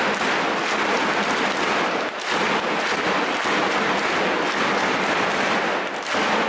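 Large crowd clapping: a dense, steady patter of many hands, briefly dipping about two seconds in and again near the end.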